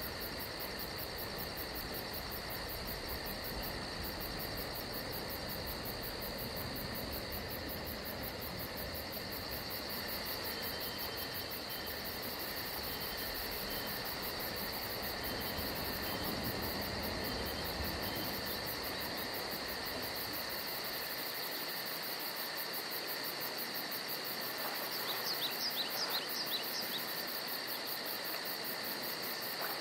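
Steady chorus of crickets and other insects, with a fast, even high-pitched pulsing over constant buzzing tones. Near the end a bird gives two quick runs of short, sharp, falling chirps.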